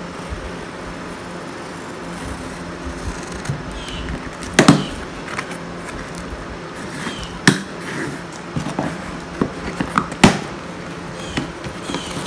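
Box and packaging of a winch kit being handled: rustling with scattered clicks and three sharp knocks as parts are moved and set down, over a steady hum.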